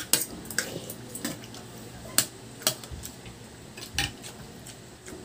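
Metal spoons and a fork clinking and scraping against ceramic plates and bowls during a meal: about half a dozen separate sharp clinks, each a second or so apart.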